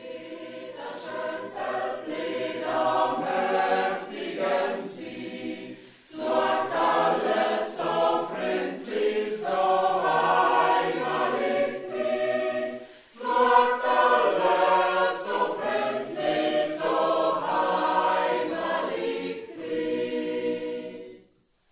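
Mixed choir of men and women singing together in three phrases, with short pauses between them, stopping abruptly near the end.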